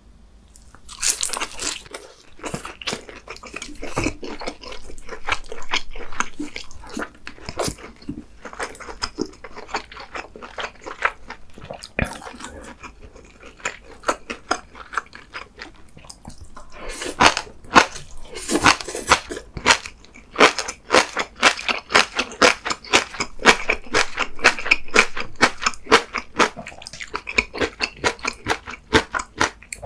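Close-miked chewing and crunching of food: a man eating grilled mackerel, seasoned soybean sprouts and multigrain rice, with wet mouth clicks throughout. From about halfway through the chewing grows louder and settles into a steady, quick rhythm.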